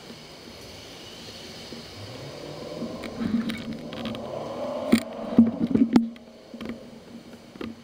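Faint traffic, then a run of knocks and rattles from the bicycle and its mounted camera as the bike is shifted and steadied, loudest about five to six seconds in, with a few more clicks near the end.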